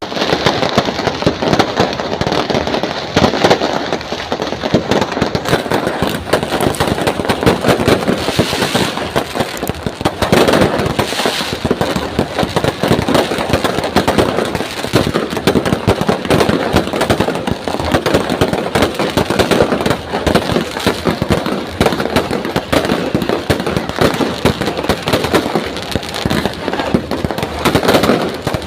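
Fireworks display going off: a dense, unbroken crackle of many overlapping bangs and pops with no pause.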